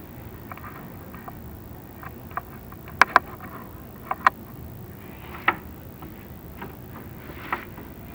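Chimney inspection camera being lowered down a clay-tile flue, its head clicking and knocking against the flue tiles a few times, twice in quick pairs, over a steady low rumble.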